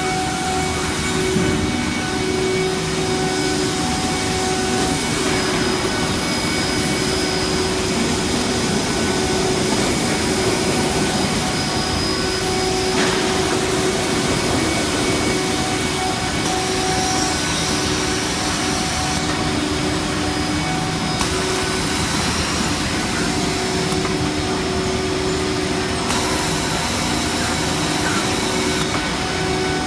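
Industrial panel edge sanding and milling machine running, with its dust extraction: a loud, steady machine drone with several held tones over a dense rushing noise.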